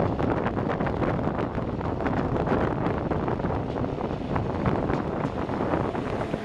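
Wind buffeting the microphone over the steady running noise of a moving passenger train, heard from its open coach door, with rapid irregular clatter from the wheels.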